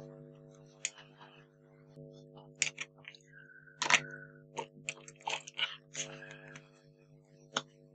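Scissors snipping through foam mounting tape and paper card, with scattered crisp clicks and crunches and a short scraping hiss about halfway through. A steady low hum runs underneath.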